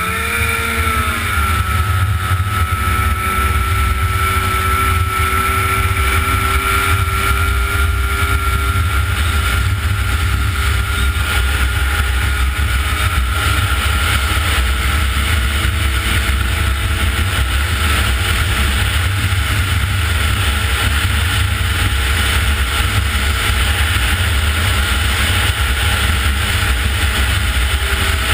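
Snowmobile engine rising in pitch as it speeds up at the start, then running steadily at cruising speed, with a steady rush of wind and running noise under it.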